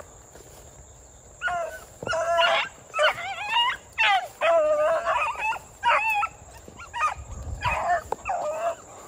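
Beagles baying as they run a rabbit track: a string of short bays that starts about a second and a half in and goes on almost to the end, with gaps of a fraction of a second between calls.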